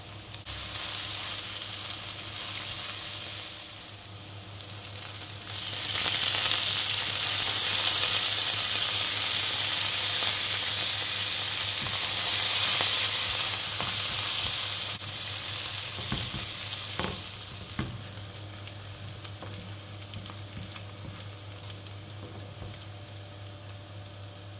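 Sliced red onions sizzling in hot oil in a nonstick frying pan while a spatula stirs them. The sizzle swells loud about a quarter of the way in, eases off after the middle, and a few spatula knocks on the pan come a little past the middle.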